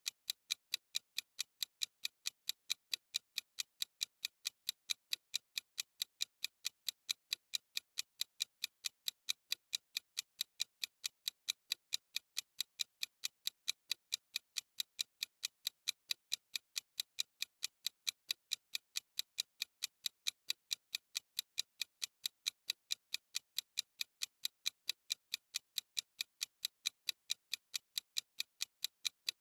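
Clock-ticking sound effect: a steady run of short, sharp, even ticks, about four a second, with no change in pace or loudness.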